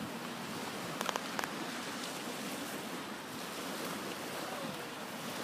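Small waves breaking and washing up a shingle beach, heard as a steady hiss, with a few brief clicks about a second in.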